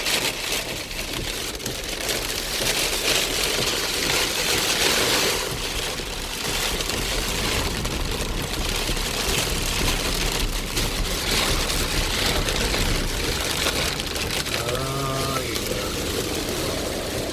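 Very heavy rain beating on a car's roof and windscreen, heard from inside the moving car, a steady rushing noise that swells and eases, with the car's engine and road noise low underneath.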